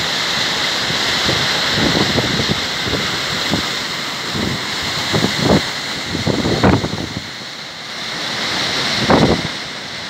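Steady rushing of a waterfall and mountain stream, with several low gusts of wind buffeting the microphone, the strongest about halfway through and near the end.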